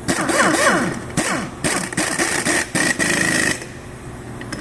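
Impact wrench run in several bursts, pitch gliding, as it tightens the nuts that clamp the two halves of a forklift's two-piece split rim. It stops about three and a half seconds in.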